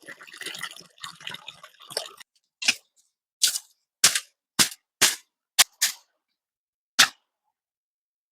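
A hand digging tool striking rock: a couple of seconds of scraping and crunching, then about eight sharp blows at uneven intervals.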